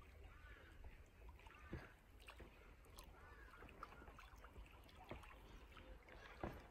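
Near silence: faint outdoor ambience with a low rumble and a few faint rising-and-falling calls in the first three seconds.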